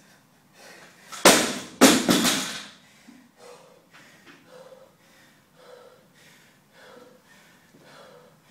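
An 80 kg barbell with black bumper plates dropped from overhead onto a floor mat: a loud bang about a second in and a second bang half a second later as it bounces. Then the lifter's heavy breathing, short hard breaths about once a second.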